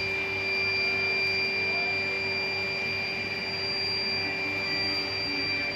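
Electric induction furnace running: a steady high-pitched whine over a lower steady hum, with no change in pitch or level.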